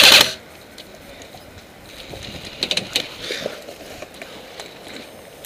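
The end of a full-auto burst from an airsoft electric rifle, cutting off just after the start, then a few faint, sharp clicks about two and a half to three seconds in.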